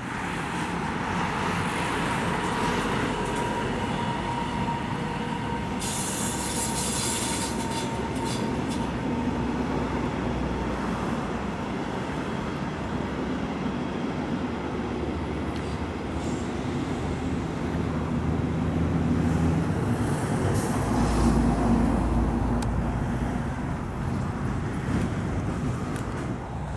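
Regional train, a DB class 147 electric locomotive with red double-deck coaches, running over a brick railway viaduct. It makes a steady rolling rumble, with a thin high whine for the first several seconds and the rumble swelling about twenty seconds in.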